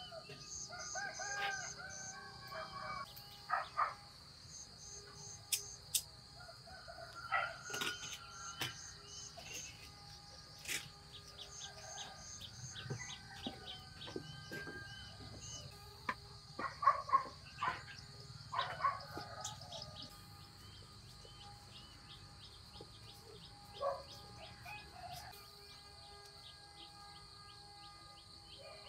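Chickens calling several times, with rooster-like crows, over a steady high insect drone and pulsing insect chirps. Scattered sharp knocks are heard.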